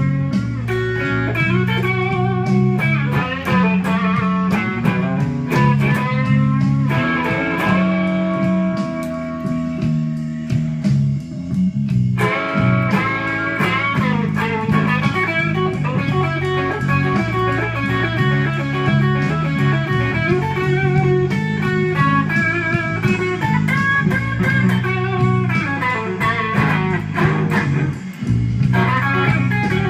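Electric guitar, a Fender Stratocaster, playing a slow blues lead with string bends over a backing track of bass and drums. A third of the way through it holds one long sustained note before the phrases resume.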